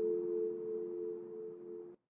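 A tolled church bell's hum dying away after a stroke: a few steady tones that slowly fade and cut off just before the end. Slow funeral tolling.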